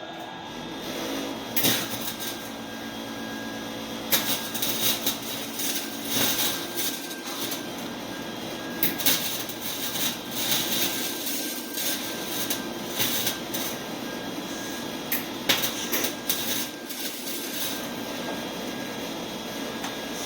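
Welding arc crackling and spitting with many sharp pops as an exhaust pipe is welded under a car, in uneven stretches of a few seconds each.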